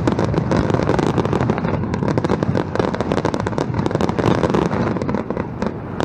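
Fireworks going off nonstop: a dense run of rapid crackles and pops over a continuous low rumble of bursts.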